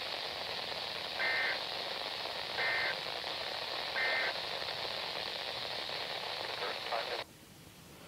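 NOAA weather radio receiver playing a weak, hissy broadcast. It gives three short two-tone data bursts about 1.4 seconds apart: the EAS end-of-message code that closes a Required Weekly Test. The hiss cuts off suddenly near the end as the receiver mutes.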